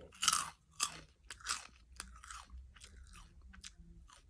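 A person biting and chewing crunchy Chiki Twist corn puffs: a few loud crunches in the first two seconds, then softer chewing.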